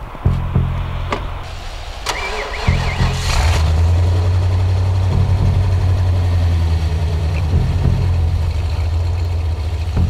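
A Ford F-series pickup's engine is cranked and catches about two seconds in, then runs on steadily at idle. Music plays underneath.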